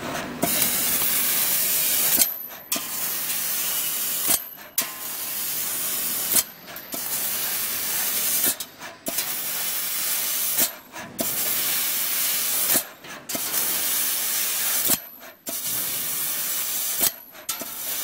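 Fiber laser cutting machine cutting sheet metal: a loud, steady hiss of assist gas and sparks from the cutting head. It breaks off briefly with a click about every two seconds, between cuts.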